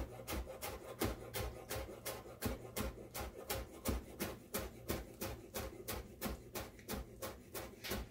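Chef's knife chopping chives finely on a cutting board: a steady run of quick blade taps, about four to five a second.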